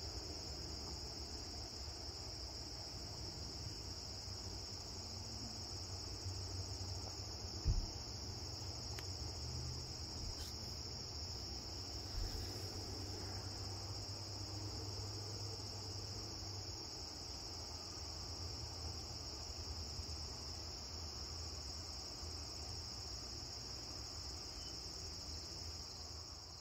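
Crickets singing in a steady, continuous high-pitched trill, with a brief low thump about eight seconds in.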